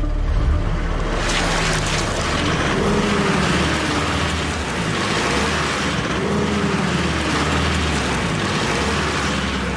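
A vehicle engine revving hard, its pitch rising and falling twice, while the driven wheels spin on a very slippery skid pan and a loud hiss of spinning tyres starts about a second in. The wheels cannot get enough grip to move it: the vehicle is too light for traction.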